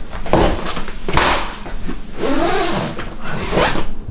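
Rustling and knocking of a suitcase and clothes being handled during packing, with several sharp clatters.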